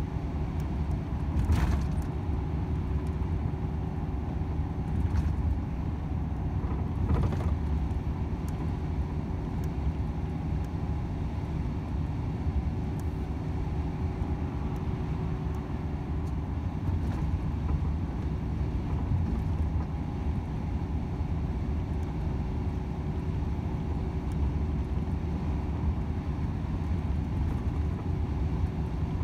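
Volvo FH 500 truck's 13-litre straight-six diesel running steadily under way, a low even drone with road noise over it. Two brief sharp noises stand out in the first eight seconds.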